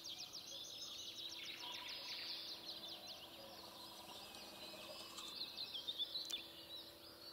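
Small birds singing in chorus, with a fast trill of rapid high notes in the first couple of seconds and scattered chirps after.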